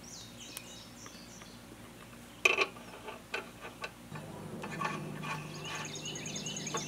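Scattered small metal clicks of hand tools and parts being handled on a riding-mower deck, with one sharp clack about two and a half seconds in. Birds begin chirping and a steady low hum comes in during the second half.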